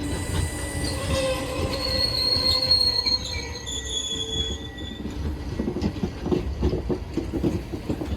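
A train running on the rails with a low rumble, its wheels squealing in high tones that change pitch over the first few seconds. In the second half the wheels clatter over the rail joints in a quick run of knocks.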